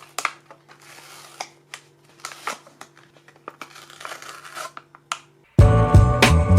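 Crinkling, tearing and sharp clicks of a Hot Wheels die-cast car's packaging being handled and opened, over a faint steady hum. Loud music with a beat starts suddenly near the end.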